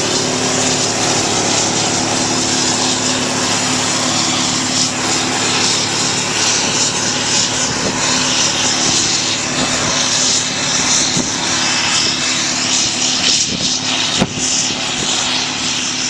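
John Deere round-baling cotton picker running steadily: a constant loud drone with a steady low hum under a broad hiss. A single sharp knock comes about fourteen seconds in.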